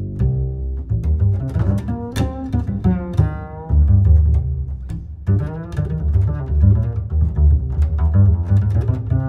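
Background music with a heavy, pulsing bass line under a pitched melody, with a sliding, wavering figure a couple of seconds in.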